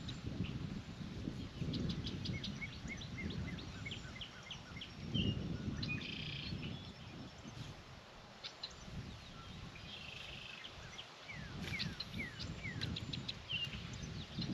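Songbirds chirping and calling, with many short chirps, quick trills and sweeping notes, over a steady low rumble.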